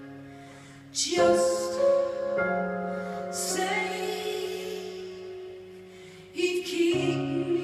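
Live stage-keyboard accompaniment: sustained chords struck about a second in, with further notes over the next few seconds, fading slowly, then struck again near the end.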